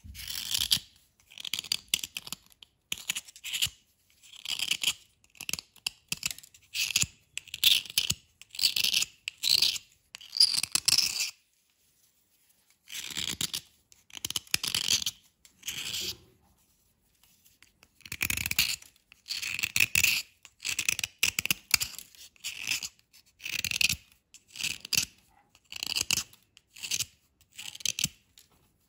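A pocket-knife blade scraping and shaving a dry white chalk-like bar, one short scraping stroke after another, about one or two a second, with two brief pauses midway.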